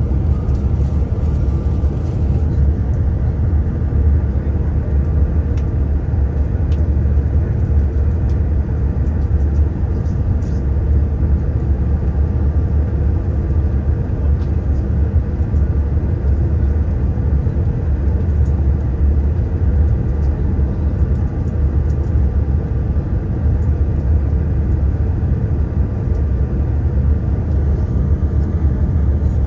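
Steady engine and airflow roar heard inside a jet airliner's cabin on final approach: a deep, even rumble with a faint steady high tone above it.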